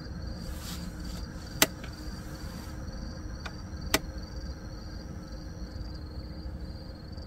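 Insects chirping in a steady, high-pitched pulse, about three chirps a second. Two sharp clicks stand out, about one and a half and four seconds in.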